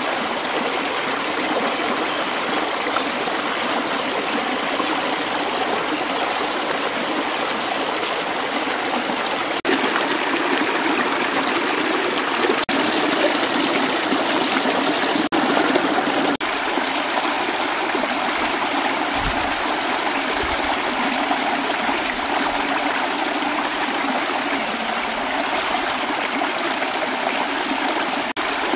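Shallow rocky stream running over stones: a steady rush and trickle of water.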